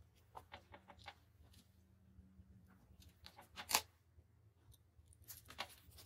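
Faint taps and scratches of pens on paper and desk: a quick run of small ticks about half a second in, a louder sharp click a little past halfway, and a few more near the end.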